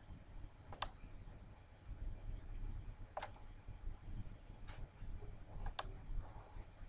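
Scattered clicks of a computer mouse and keyboard Ctrl key: a few single and paired sharp clicks spread over several seconds.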